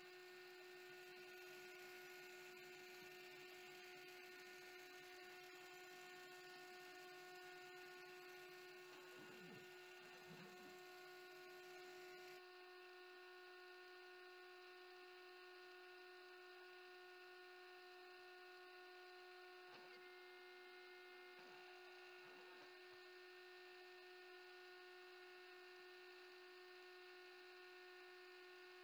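Faint, steady hum of a CNC router spindle running while it mills HDPE sheet, one constant tone with overtones. About twelve seconds in, the hiss above it drops away.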